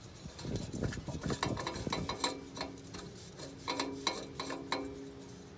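Spin-on oil filter being screwed onto its mount by hand under the car: a run of small irregular clicks and scrapes of metal handling.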